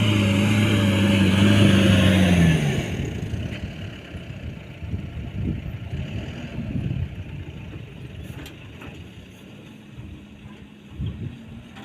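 Diesel engine of a Mahindra off-road pickup running hard at steady high revs under load, then falling away sharply about two and a half seconds in. After that the engine is faint, with scattered light clicks.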